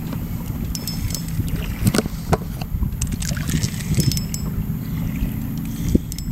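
Choppy lake water lapping and slapping against a kayak hull, with wind buffeting the microphone as a steady low rumble. Scattered short clicks and knocks come through, several of them around two seconds and four seconds in.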